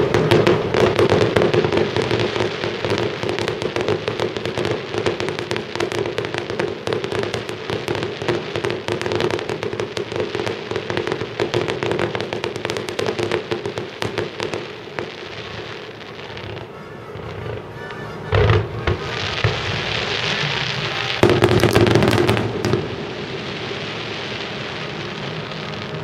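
Fireworks finale: a dense barrage of shells bursting in rapid succession for about fifteen seconds, then thinning out, with a single loud bang and a last short flurry of bursts near the end.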